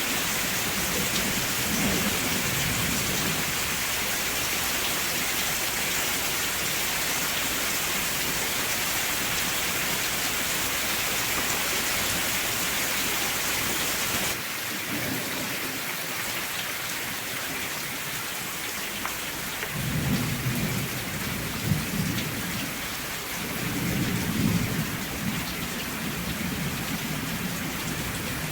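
Steady rain with low rumbles of thunder, one a couple of seconds in and several in the last third. About halfway the rain sound changes abruptly, becoming a little softer and duller.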